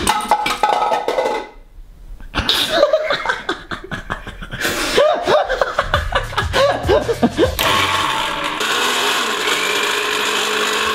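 Laughter, then from about seven and a half seconds in an electric countertop blender running with a steady, even whirr. A snatch of music is heard at the very start.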